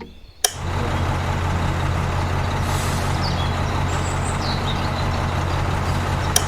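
Heavy engine running at a steady idle, a low even rumble like a diesel truck. It starts abruptly about half a second in and cuts off sharply at the end. Faint bird chirps sound over it.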